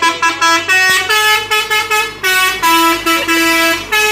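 A musical multi-tone vehicle horn playing a quick tune, a fast run of short notes that change pitch several times a second.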